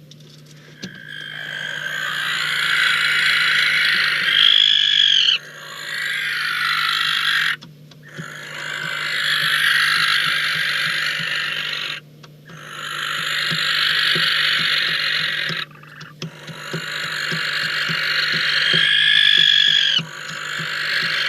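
Barn owls giving long, hoarse hissing screech calls, one after another with short breaks, about five in all. Two of them carry a brief thin whistled note.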